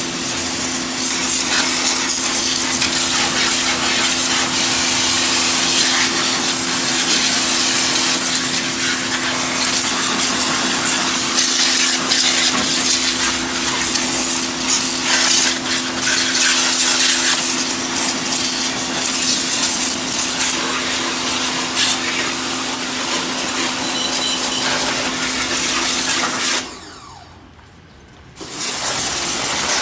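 Pressure washer running with a steady hum while its jet hisses against a lawn mower's plastic and metal deck. About 27 seconds in, the hum and spray cut off sharply. A shorter burst of hissing noise follows near the end.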